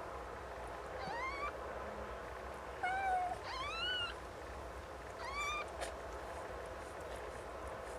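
Newborn kittens mewing: four short, thin, high-pitched cries, each rising in pitch, two of them close together near the middle.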